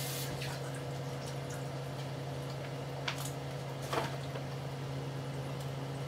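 Bacon frying in bubbling fat in a skillet: a steady sizzle with a few sharp pops, the clearest about three and four seconds in. A steady low hum runs underneath.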